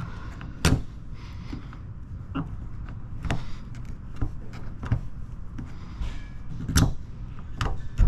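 Scattered light taps and knocks of hands working on a car door at the door handle cup, pressing down wet paint protection film, with a low steady hum underneath.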